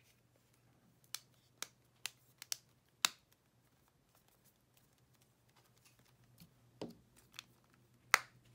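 A series of sharp plastic-and-metal clicks and snaps as an iPod Touch is pressed shut and its display clips seat into the case: about six clicks in the first three seconds, then a pause, then a few more near the end, the last one the loudest.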